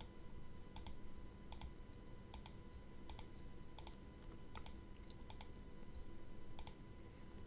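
Faint clicks of computer controls, roughly one every three-quarters of a second and sometimes in quick pairs, as the chess moves are stepped through on screen. A faint steady electrical hum lies underneath.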